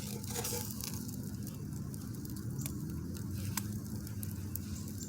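Campfire crackling, with scattered sharp pops over a steady low rumble.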